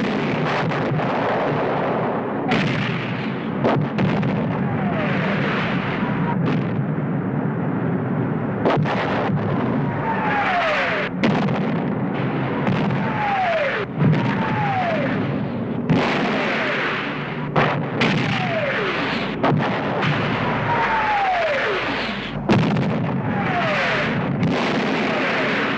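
Aerial bombing raid: bombs whistle down one after another, each whistle falling in pitch, and explosions go off every couple of seconds over a continuous rumbling din.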